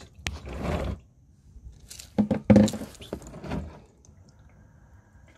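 Engine oil draining from the drain-plug hole into a catch pan, with wet squishing and splashing handling noises in bursts: a short one about half a second in and a louder stretch from about two to four seconds in.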